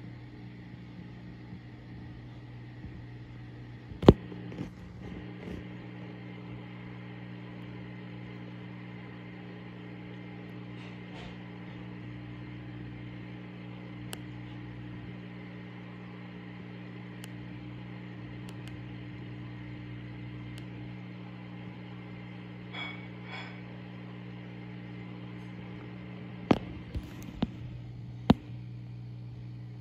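Steady low electrical hum of running aquarium equipment. One loud sharp click comes about four seconds in, and several more come close together near the end.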